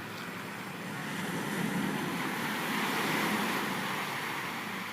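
Small waves washing onto the shore of the bay, a steady rush that swells for a couple of seconds and then eases off.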